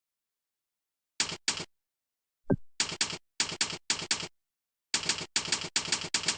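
Computer keyboard keystrokes: about a dozen short clicky bursts with silence between them, starting about a second in. About a third of the way in, a short falling tone sounds among the keystrokes.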